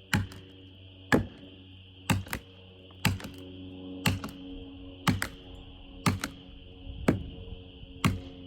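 Plastic felling wedges being hammered into the back cut of a tree: a sharp strike about once a second, about nine in all, several followed by a quick second blow. The wedges drive the tree over in the chosen direction.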